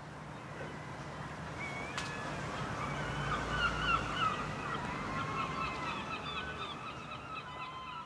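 A flock of birds calling, many overlapping honking calls, swelling to a peak in the middle and then easing off. A sharp click about two seconds in.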